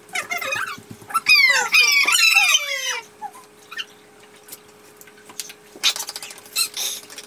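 High-pitched whoops and squeals from several voices, sliding down in pitch, as glasses are raised and drunk in a toast; about six seconds in, a short burst of laughter and hand clapping.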